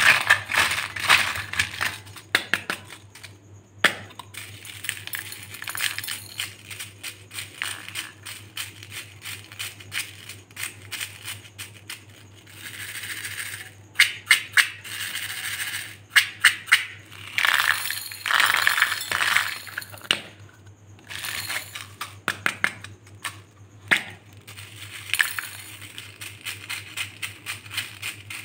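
Small plastic cups of beads handled in a glass bowl: repeated clicks and clinks of plastic against plastic and glass, with stretches of beads rattling in a cup as the lids come off. A faint steady low hum lies underneath.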